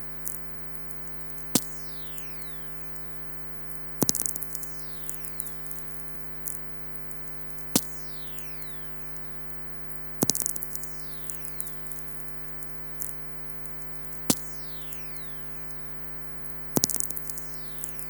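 Whistlers picked up by a very-low-frequency radio receiver and played as sound: about six sharp crackling clicks from lightning strikes, each followed by falling whistle tones that slide down in pitch over about a second, over a steady hum.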